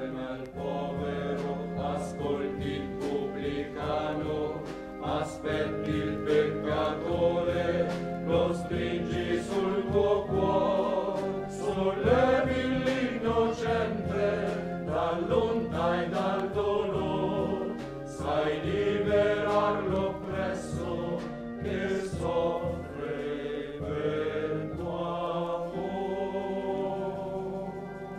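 Choir singing an Italian Christian hymn, with sustained musical backing.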